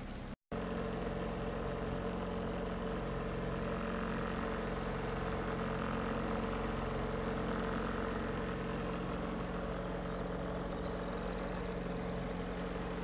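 A small wooden motorboat's engine running steadily at cruising speed, an even drone over the rush of water and wind, with the sound cutting out for a moment about half a second in.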